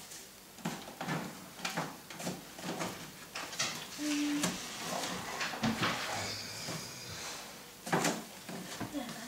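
Cling film being pulled out of its cardboard dispenser box and handled: crackling plastic with repeated clicks and knocks of the box, and a stretch of rustling about five to seven seconds in.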